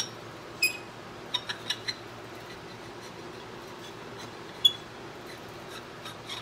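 Small metallic clicks and clinks of a hex key working the set screw in the hub of a model steam engine's steel flywheel: a few light taps in the first two seconds and one sharper, ringing clink past the middle, over a faint steady hum.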